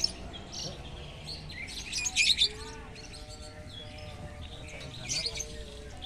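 Lovebirds chirping in several short, high-pitched bursts, the loudest about two seconds in.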